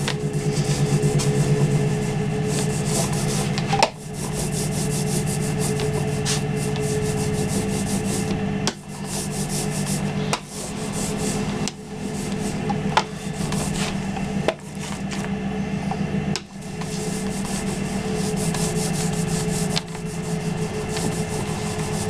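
Small paint roller rolling acrylic paint back and forth over a flat wooden board: a steady rasping rub, broken by short breaks every couple of seconds as the strokes turn or the roller is lifted.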